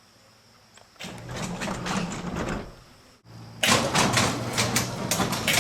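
Electric garage door opener running with a steady motor hum while the door clatters and rattles along its tracks, starting about a second in, breaking off briefly near the middle and starting again louder.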